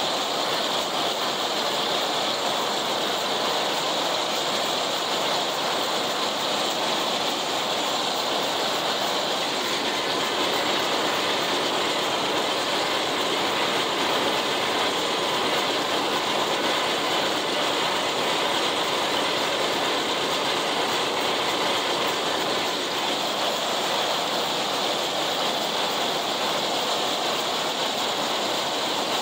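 International 990 haybine mowing hay behind a John Deere 70 two-cylinder tractor: a steady, noisy mechanical clatter of the sickle bar, reel and conditioning rolls over the tractor's engine working under load, heard from the operator's seat.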